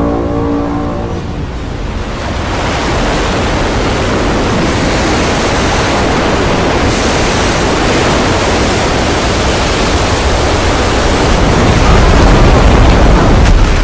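Heavy surf from a huge crashing wave: a dense, steady rush of water that grows louder near the end.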